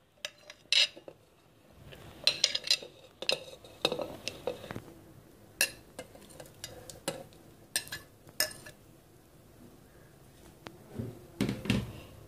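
Frozen mango pieces and banana slices tipped from a glass bowl into a stainless-steel mixer-grinder jar: a string of sharp clinks and knocks as the bowl and spoon strike the steel jar and the pieces drop in, with a duller knock near the end.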